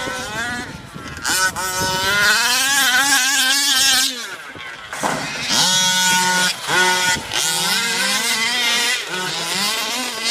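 Losi 5ive-T RC truck's 30.5 cc modified two-stroke petrol engine revving up and down, its pitch rising and falling with the throttle. It drops back briefly about four seconds in.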